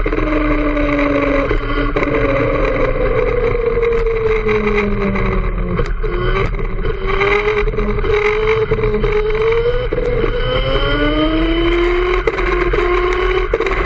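Go-kart engine heard from on board while driving a lap. Its pitch falls as the kart slows into corners and rises again as it accelerates out, twice.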